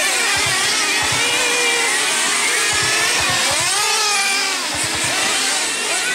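Several 1/10-scale radio-controlled dirt oval race cars running laps together, their motors whining in overlapping pitches that rise and fall as the cars throttle up and back off.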